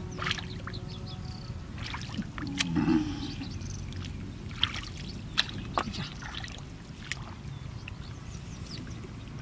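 Shallow muddy water sloshing and splashing in small, sharp bursts as hands grope through it and the mud beneath for fish. A short low-pitched sound stands out about three seconds in.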